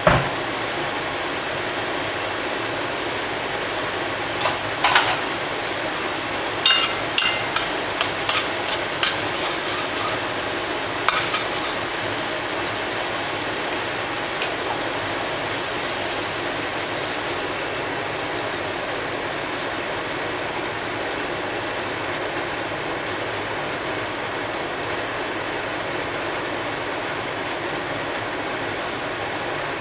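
Beef and celery stir-frying in a pan with a steady sizzle. A metal utensil clinks and scrapes against the pan, a couple of times at about 4 to 5 seconds in, then about ten quick strokes between about 7 and 11 seconds in.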